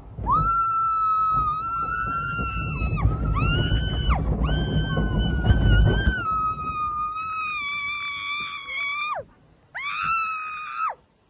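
A woman screaming on a water ride: about five long, very high screams, each held steady, with a loud low rumble of the moving ride under the first ones that stops about six seconds in.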